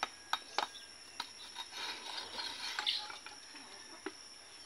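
A bolo knife cutting a green coconut: a few sharp taps of the blade in the first second, then a stretch of rough scraping and cutting through the husk and flesh, with a few more ticks near the end.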